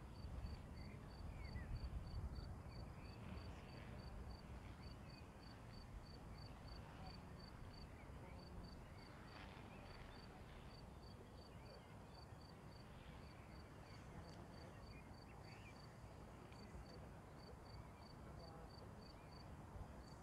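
An insect, cricket-like, chirping in short high-pitched pulses, about three a second with occasional pauses, over a faint low rumble that is strongest in the first two or three seconds.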